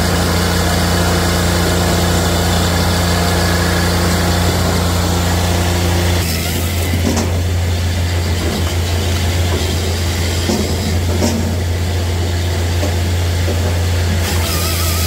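Japa 405 firewood processor running: its onboard engine drones steadily. The sound changes abruptly about six seconds in, and a few light knocks from the machine follow.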